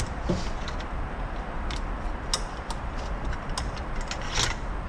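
A handful of light, separate metallic clicks as the steel clutch plates and snap ring inside a Chrysler 62TE transmission's input drum are worked loose by hand and with a pick. A steady low rumble runs underneath.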